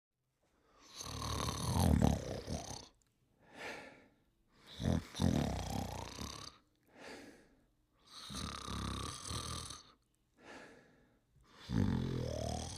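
Snoring in a steady rhythm: long rattling snores about every three and a half seconds, each followed by a short, fainter breath out. Some snores end in a rising tone.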